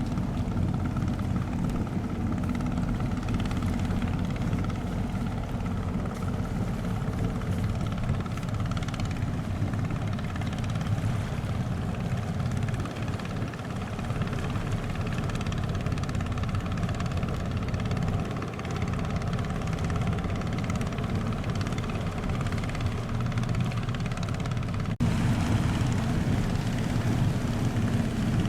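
Boat engines running with a steady low drone. About 25 seconds in there is an abrupt cut, after which the drone is a little louder.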